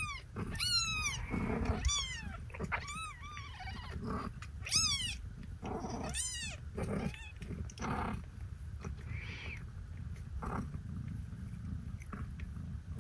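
Newborn kittens, woken while nursing, mewing in a string of thin, high squeaks, each one falling in pitch. The cries are thickest in the first half and grow fewer and fainter after that, over a low steady rumble.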